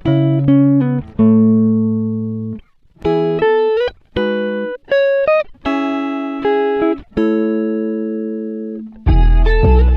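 Background music: a melody of plucked guitar notes, each ringing and fading, with deeper bass notes and a fuller accompaniment coming in near the end.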